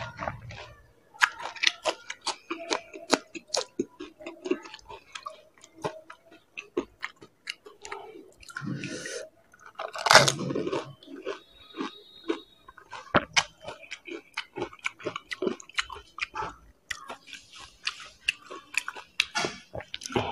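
Close-miked crunching and chewing of panipuri: crisp fried puri shells cracking between the teeth in many sharp crunches, with wetter chewing in between. The loudest burst comes about ten seconds in.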